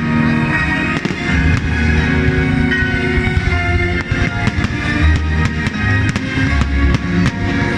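Festival fireworks going off, with many sharp bangs and crackles over music with a steady beat.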